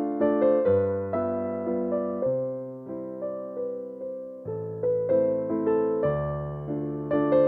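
Background music: a soft solo piano or electric piano playing a gentle melody over slow bass notes, each note struck and fading away.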